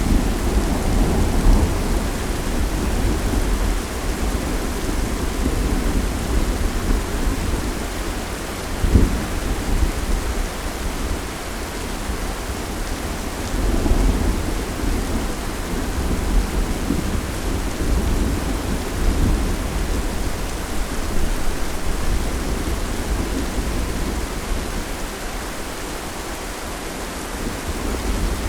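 Steady rain with thunder rumbling low and swelling in waves, and a sharper thump about nine seconds in.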